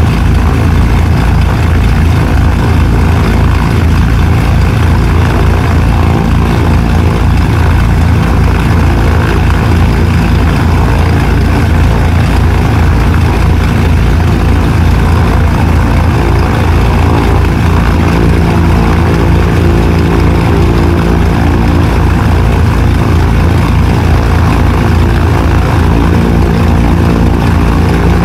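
Both engines of a Cessna 310R light twin, air-cooled flat-six Continentals, running steadily with the propellers turning, a loud low throbbing. The tone shifts slightly about two-thirds of the way through.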